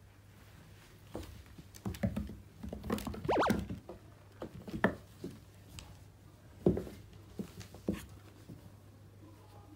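Two cats play-fighting on a wooden floor: scuffling, bodies and paws thumping and claws skittering on the boards in several short bursts, busiest a little over three seconds in.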